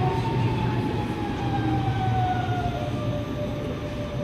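Electric multiple-unit train running slowly into a station platform, braking. Its traction motors give a high whine that falls slowly in pitch over a steady low hum.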